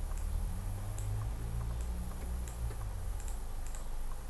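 Several faint, spaced clicks of a computer mouse as drop-down options are picked, over a low steady hum.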